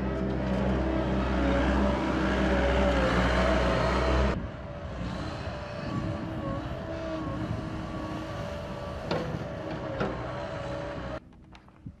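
Gehl skid-steer loader's engine running, loud and steady for about four seconds, then after a sudden change running more quietly with a wavering tone and two sharp knocks about nine and ten seconds in. Near the end it drops away to a much quieter background.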